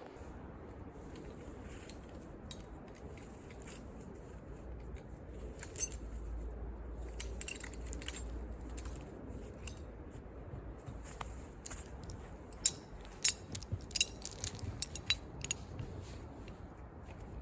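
Light clicks and clinks of rigging hardware being handled as the rigging is taken down, scattered through and bunched in a run of sharper ones in the last few seconds, over a low steady rumble.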